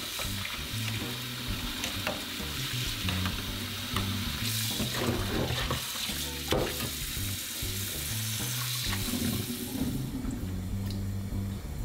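Cold tap water running into a saucepan in the sink as parboiled beef is rinsed, with a few clicks of metal tongs against the pan. The water stops about ten seconds in. Soft background music plays underneath.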